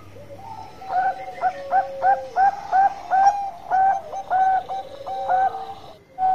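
Bangkok-type zebra dove (perkutut) singing its long song: a run of about a dozen quick coo notes, each rising then dropping, starting about a second in and ending near the end. Other doves coo lower and more softly behind it.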